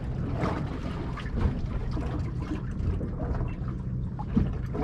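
Wind rumbling on the microphone and water against a small boat's hull, with scattered small knocks and clicks.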